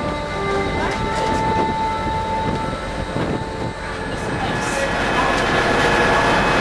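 Steady rumble and hiss of machinery on a ferry's car deck, with a few faint steady tones over it, growing a little louder after about four seconds.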